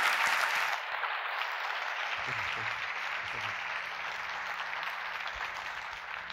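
Audience applauding, loudest at the start, easing a little about a second in, then holding steady before starting to die away near the end.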